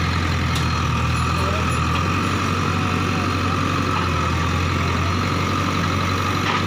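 Heavy diesel engine running steadily at a constant idle, with a low, even drone.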